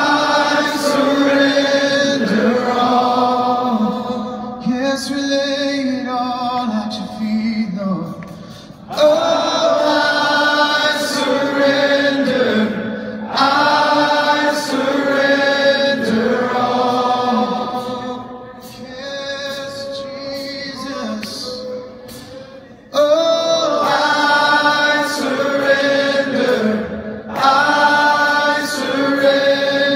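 A large congregation singing a worship song together with no instruments. The many voices rise and fall in sung phrases. There is a softer stretch past the middle before full volume returns.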